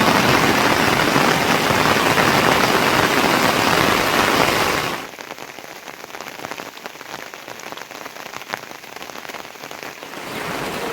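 Heavy rain falling in a dense, steady downpour. About halfway through it drops suddenly to a quieter patter of separate drops, then grows louder again near the end.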